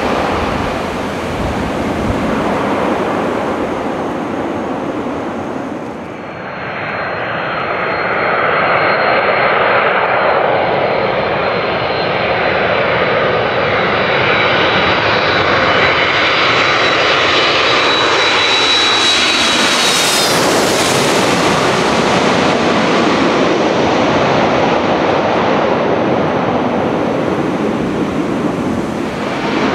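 Twin-engine jet airliner on final approach, its engine noise growing, with a high whine that rises in pitch. It is loudest as the plane passes close overhead about two-thirds of the way in, then the whine drops in pitch and the noise eases as the plane goes away toward the runway. Before that, about six seconds in, a landing jet's engine noise fades out.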